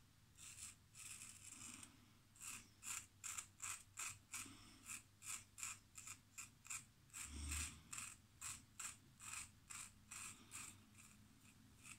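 GEM 1912 single-edge safety razor cutting through lathered stubble on the chin and neck: a faint, quick run of short scratching strokes, about three a second.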